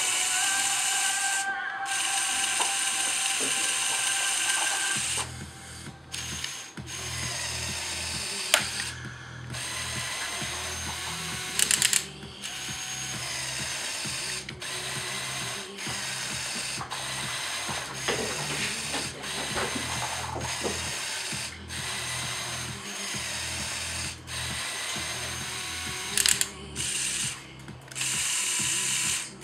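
Small Lego Technic electric motor whirring through plastic gears as it drives the pushback tug's lifting mechanisms, stopping and restarting many times.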